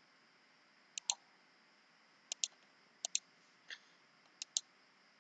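Computer mouse clicking: four quick paired clicks about a second apart, each a sharp press and release, with one softer click between them.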